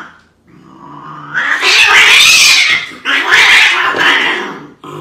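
Two cats fighting: a low growl rising into a loud yowling screech, then a second long yowl about three seconds in.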